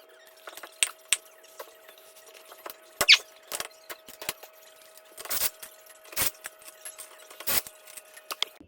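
Irregular clicks and knocks of metal hand tools working on a small engine, some sharp and some with a short scrape. A faint steady hum runs underneath.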